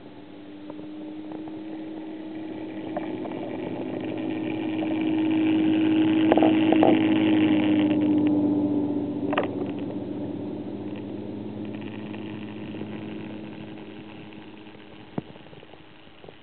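A steady motor hum that swells to its loudest about halfway through and then fades away, with a couple of faint knocks near the middle.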